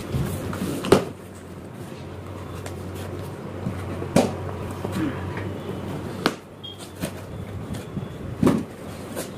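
A taped cardboard carton being opened: the tape slit with a box cutter and the flaps pulled back, with cardboard rustling and about four sharp knocks as the flaps and lid are handled.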